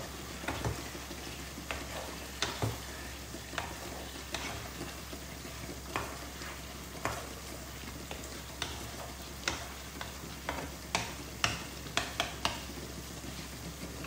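Wooden spatula stirring mutton curry in a non-stick frying pan: irregular soft knocks and scrapes against the pan over a steady sizzle, stopping near the end.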